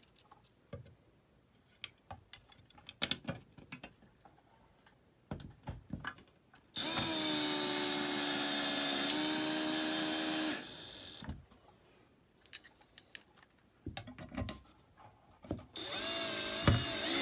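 Milwaukee Fuel cordless drill driving screws through a steel shelf bracket into drywall anchors: a steady motor whine for about four seconds, dipping slightly in pitch as the screw tightens, then a second run near the end. Light clicks and taps of the bit and bracket being positioned come before.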